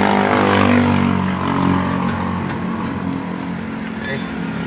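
A motor vehicle engine running steadily, its pitch drifting slightly, with a brief high-pitched metallic clink about four seconds in.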